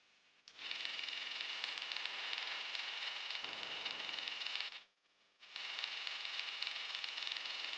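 Household sewing machine running at speed with a fast, even stitching rattle. It stops abruptly about five seconds in and starts again half a second later.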